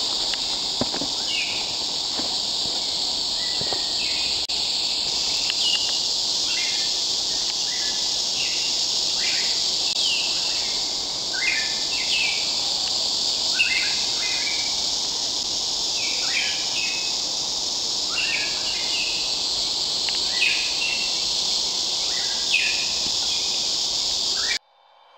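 Outdoor forest ambience: short bird chirps, about one every second, over a steady high-pitched hiss. It cuts off suddenly near the end.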